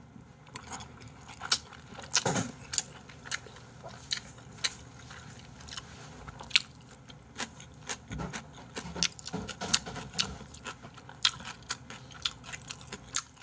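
Close-miked mouth sounds of chewing Jjapaghetti noodles and crunchy cabbage kimchi: a run of irregular wet clicks, smacks and crunches.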